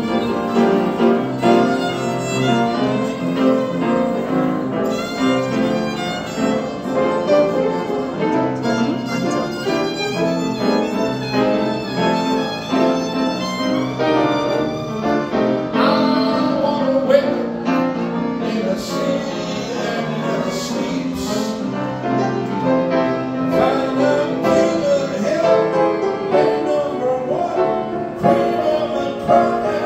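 Violin and grand piano duo playing live, a quick, busy melody of many short notes over piano accompaniment.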